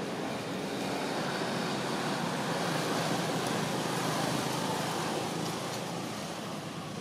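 Road traffic: a passing vehicle's steady rushing noise, growing to its loudest in the middle and fading toward the end.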